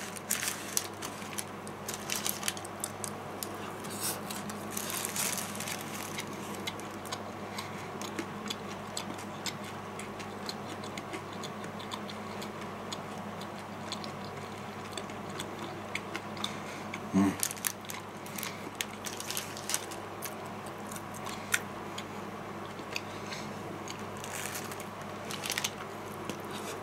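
Quiet sounds of eating fried chicken by hand: fingers pulling meat apart on paper napkins and chewing. Scattered soft clicks and smacks run over a faint steady hum, with one brief louder sound about two-thirds through.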